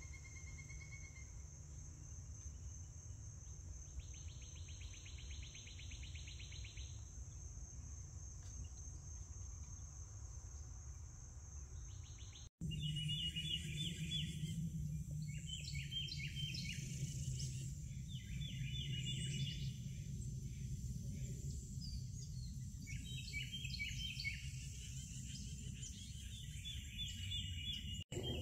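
Outdoor morning ambience: insects keep up a steady high drone, with a rapid insect trill for a few seconds about four seconds in. After an abrupt cut partway through, birds chirp in repeated short phrases over a low rumble.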